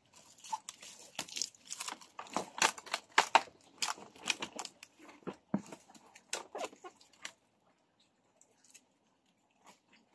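A blue plastic strap being pulled tight and knotted around a bundle of split wood poles: a rapid run of dry crackles, rubbing and creaks from the strap and the wood. The handling stops about seven seconds in, leaving only a few faint ticks.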